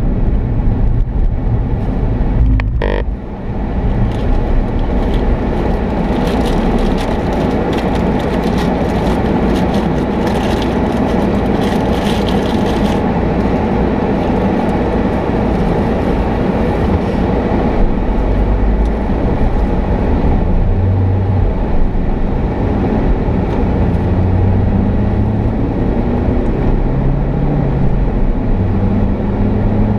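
A vehicle on the move: steady engine and road noise with a low hum that drifts in pitch. There is one brief sharp sound about three seconds in, and extra hiss from about six to thirteen seconds.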